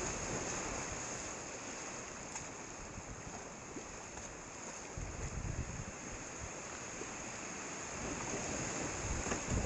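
Steady rush of whitewater from a creek rapid, heard from a camera low on the water, with a few low rumbling bumps on the microphone about halfway and near the end.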